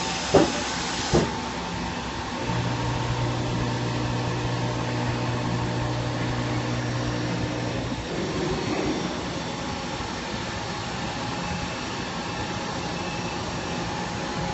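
CNC machining centre milling a metal ring workpiece, a steady machine hum with a low tone that drops out for about a second near the start and changes about halfway through. Two sharp knocks about a second apart near the start are the loudest sounds.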